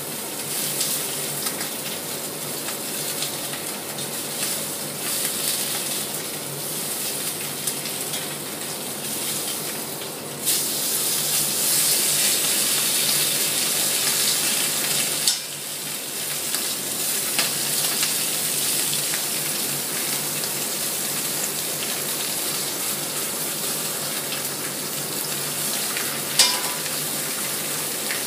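Minute steak frying in a very hot pan: a steady sizzle that grows louder from about ten seconds in for about five seconds. Two sharp clinks, one near the middle and a ringing one near the end.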